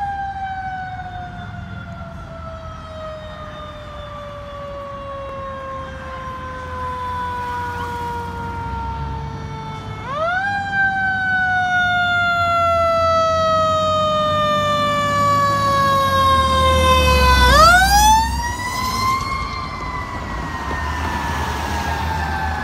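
Fire apparatus siren wailing: it winds up quickly and falls away slowly, winding up again about ten seconds in and once more near the eighteen-second mark, growing louder as the vehicles approach. The deep rumble of a heavy engine is loudest as they pass.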